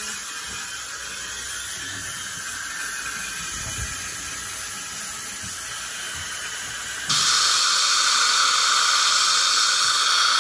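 Dental Air-Flow air-polishing handpiece jetting fine powder and water onto the teeth, with a suction tip drawing it off: a steady hiss. About seven seconds in it turns suddenly louder.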